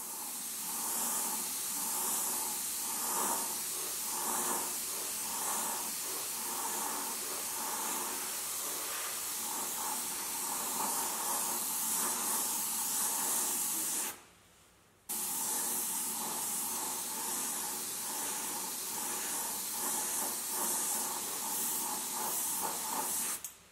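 Compressed-air paint spray gun (gravity-feed cup on top) hissing steadily while spraying base coat. The hiss stops for about a second partway through, then starts again.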